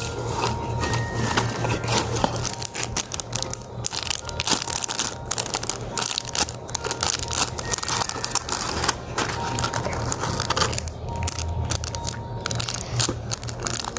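Paper crinkling and crackling continuously and irregularly as a handmade paper squishy is handled and wrapped.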